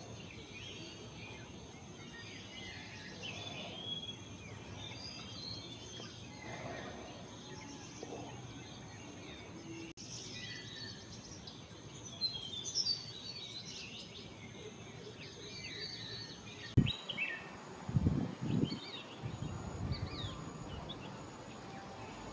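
Outdoor field sound of small birds chirping and twittering throughout, over a steady high thin tone. A few loud low thumps come in a cluster near the end.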